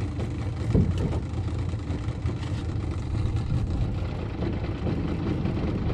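Outboard motor on a jon boat running slowly at low throttle, a steady low drone.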